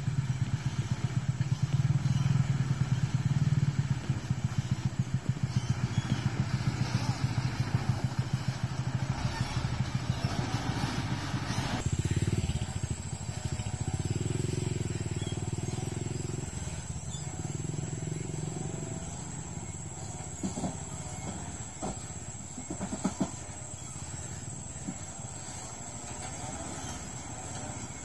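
Diesel engine of a loaded Mitsubishi sugarcane truck running steadily under load, with an even firing pulse. About twelve seconds in it drops to a lower, more distant level, and a few sharp knocks come about two-thirds of the way through.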